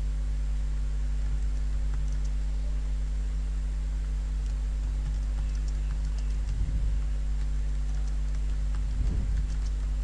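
Computer keyboard typing: light, scattered key clicks over a steady low hum, with two soft low thumps, one past the middle and one near the end.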